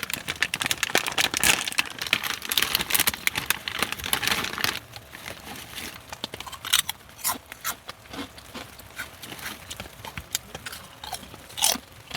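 Crinkling and crunching, dense for about the first five seconds, then sparser, quieter clicks and rustles.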